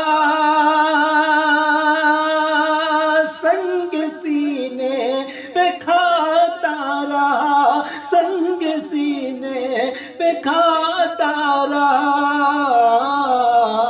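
A man singing an Urdu naat a cappella, drawing out a long, ornamented melismatic passage with no clear words. The pitch holds steady for the first few seconds, then moves in waves and turns.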